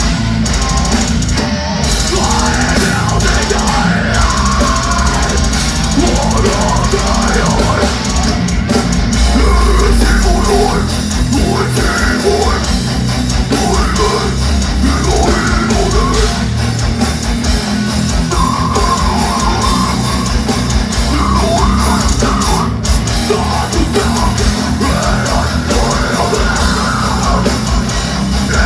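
Death metal band playing live, heard from the audience: pounding drums and heavily distorted guitars under harsh shouted vocals.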